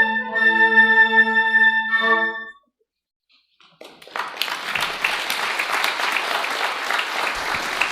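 Flutes holding the final chord of a piece, which cuts off about two and a half seconds in. After a second of silence, audience applause starts and keeps going.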